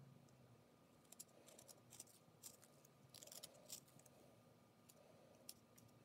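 Whittling knife slicing thin shavings off a small wooden carving: a series of faint, short cutting strokes, most bunched together a little before the middle and one more near the end.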